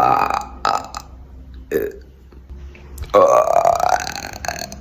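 A person burping deliberately: a short burp at the start, a shorter one just after and a brief one near two seconds. Then a long, drawn-out burp starts about three seconds in, its pitch rising slightly.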